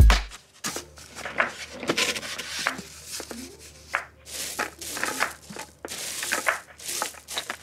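Irregular crunching of crushed gravel under hands and knees, mixed with rigid foam insulation boards rubbing and scraping as they are fitted into place.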